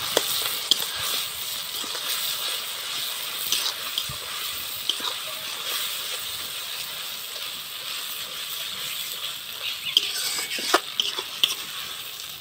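Onion, capsicum and tomato frying in oil in a metal wok with mustard-poppy paste just stirred in: a steady sizzle, with a metal spatula stirring and scraping against the pan. There are a few sharp taps of the spatula, several close together near the end.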